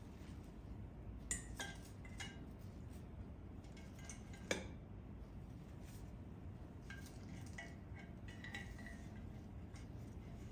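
Light clinks and taps of hard household items being handled and set down, a few ringing briefly; the sharpest knock comes about four and a half seconds in, with a run of small clinks later on.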